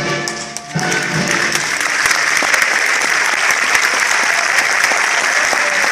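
The final chord of the singing and music cuts off under a second in, and a theatre audience breaks into loud, sustained applause.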